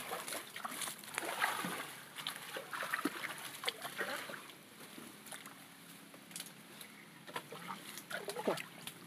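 Water splashing and sloshing in irregular bursts, busier in the first few seconds and quieter in the middle.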